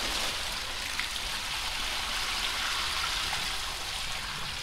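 Liquid pouring steadily from a bucket into a plastic tub, splashing into foam: a diluted vinegar and dish-soap bath being filled to de-rust a cast-iron cylinder head.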